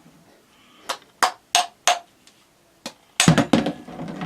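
Masonry hammer blows, a series of sharp strikes, some with a short ring, spaced out at first and then coming quickly in a cluster near the end.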